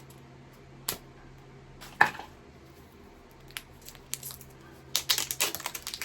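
Plastic packaging being worked open by hand: a few separate clicks and snaps, the loudest about two seconds in, then a quick run of crinkling and crackling near the end.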